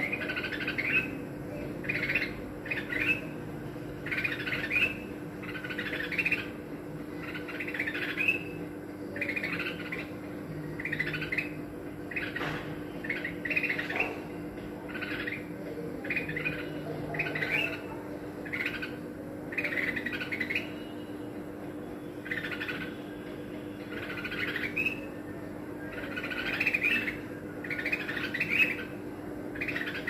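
Red-whiskered bulbuls calling: short, bright chirping phrases repeated about once a second, over a faint steady low hum.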